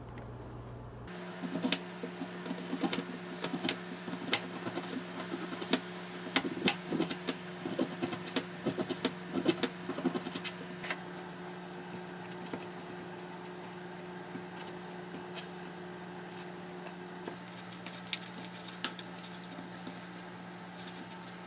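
A steady low mechanical hum that switches on about a second in, with a run of light clicks and clatter over the first ten seconds or so and a few more clicks near the end.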